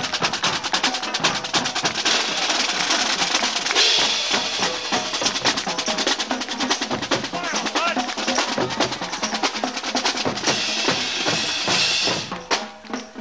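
Marching band drumline playing a fast street cadence, snare drums rattling over bass drum beats. About twelve seconds in the drumming thins to sparser, separate hits.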